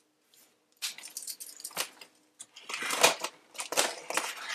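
Packing tape on a cardboard shipping box being slit open. It is a run of scratchy rasps and crackles that starts about a second in and is loudest just past the middle.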